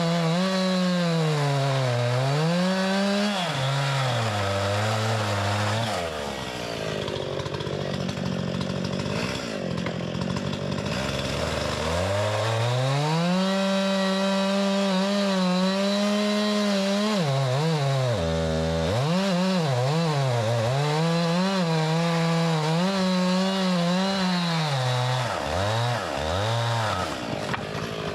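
Two-stroke chainsaw cutting slabs of wood, the engine pitch rising and sagging as it works through the cuts. About six seconds in, the throttle eases back to a low idle for several seconds, then the saw revs up and cuts again, with one more short drop near the middle.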